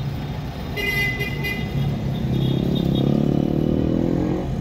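City street traffic heard from inside a slowly moving car, over a steady engine hum. A short horn toot sounds about a second in. Through the second half an engine revs up, rising in pitch and getting louder toward the end.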